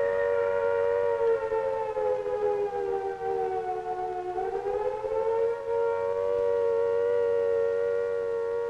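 A siren sounds a steady chord of several tones. Its pitch sags slowly and then climbs back about four seconds in.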